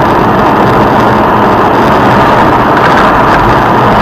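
Loud, steady vehicle noise: engine and road noise of a car on the move, with no clear pitch and no impacts.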